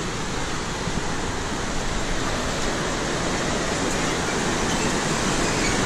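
Mountain stream rushing, a steady even noise that grows slightly louder toward the end.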